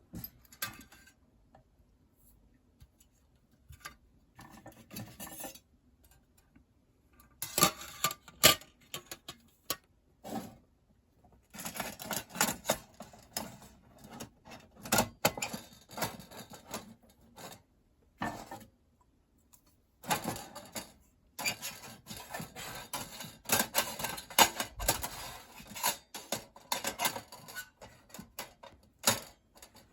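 Thin metal parts of a compact fire pit clinking and clicking as they are handled and fitted together: irregular clatter, sparse at first, then almost continuous with a few short pauses.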